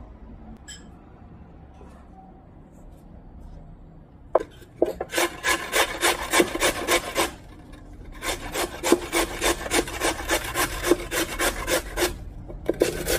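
A raw potato grated on the coarse side of a metal box grater: quick rasping strokes, about four a second, starting about four seconds in and coming in three runs with short pauses between.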